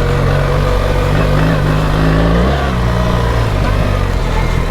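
BMW R 1300 GS Adventure's boxer-twin engine running under throttle. Its pitch climbs for about two and a half seconds, then drops back.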